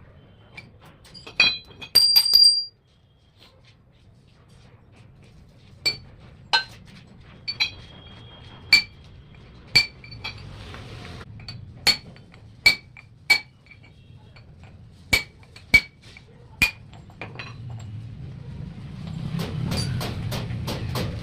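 Sharp metallic clinks of steel parts from a 60 mm concrete vibrator needle being handled during repair, coming irregularly about once a second; the loudest, about two seconds in, rings briefly. A low rushing noise builds near the end.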